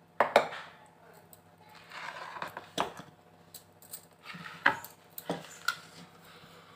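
Stainless-steel kitchen containers and their lids clinking and knocking as they are handled, with a few sharp metal knocks and brief scraping between them.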